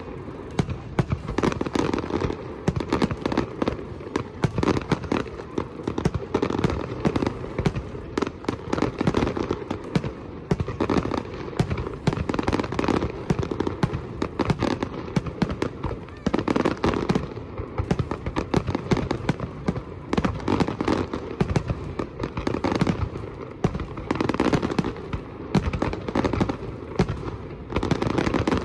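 Fireworks display: aerial shells bursting in a dense, continuous barrage of bangs and crackles.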